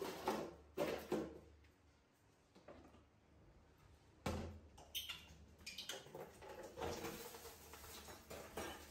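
A plastic basin and dishes knocking and clattering in a stainless-steel kitchen sink: a few sharp knocks at the start, a louder one after about four seconds, then a run of lighter clicks and clatters.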